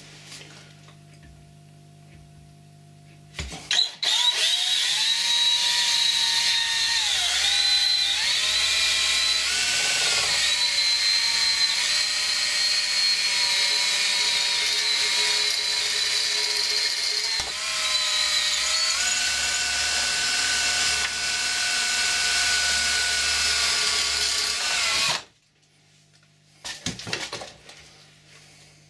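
Cordless drill boring a hole through a painted square metal tube. The motor starts about three and a half seconds in and runs loud and steady under load, its whine shifting in pitch several times as the bit bites. It stops abruptly near the end, followed by a brief clatter.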